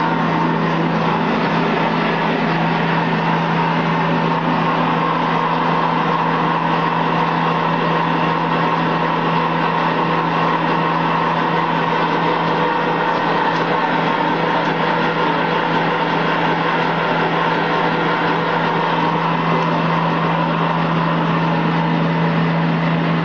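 Spraying machine running under power: its air compressor and screw pump give a steady, unbroken mechanical drone with a constant low hum.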